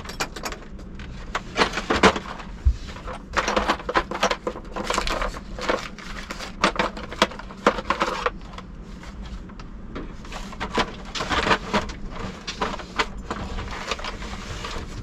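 Rummaging through a drawer of hand tools in search of a screwdriver: an irregular clatter of tools knocking and clinking together, with scattered sharper knocks.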